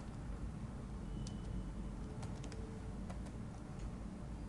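Computer keyboard keystrokes, a few scattered clicks, as text is typed into a terminal. A steady low hum runs beneath them.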